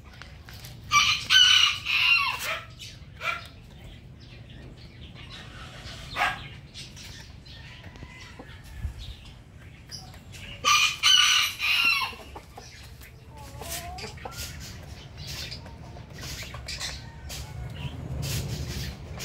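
Rooster crowing twice, once about a second in and again about ten seconds later, with softer chicken calls in between.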